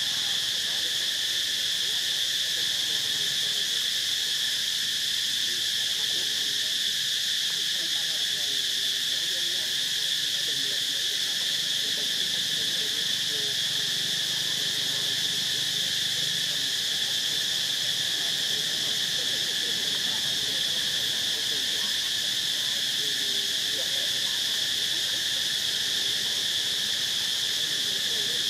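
Steady, unbroken high-pitched drone of an insect chorus, the kind made by cicadas or crickets in trees.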